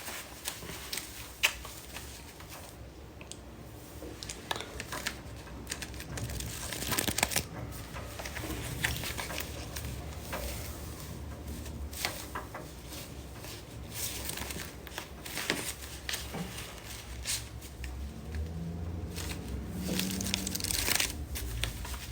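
Paper banknotes being handled, rustling and crinkling, with scattered small clicks and a few louder short rushes of noise.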